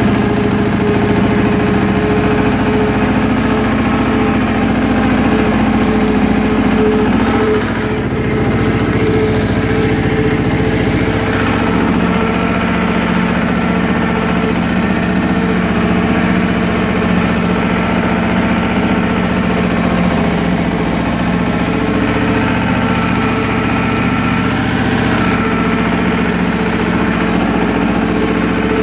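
Goldoni Universal tractor's engine running steadily as the tractor drives along. The engine note dips slightly about seven seconds in.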